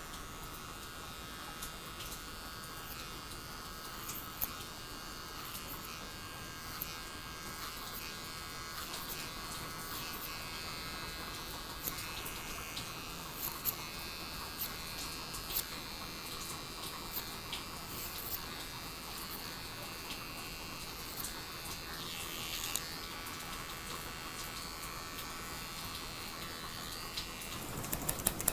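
Electric hair clipper buzzing with a steady high hum, with a few scattered small clicks. Near the end a quick run of clicks begins.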